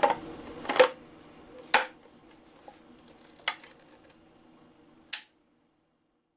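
Hard clacks and clicks of a homemade MDF and PVC prop pistol being handled: a prop cartridge pushed into the chamber and the hinged barrel swung shut. About five separate sharp knocks, the loudest in the first two seconds.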